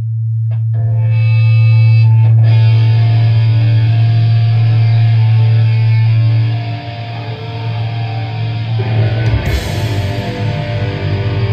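Heavy metal band playing live: a loud held low note with sustained guitar notes above it, then the full band with drums and cymbals comes in about nine seconds in.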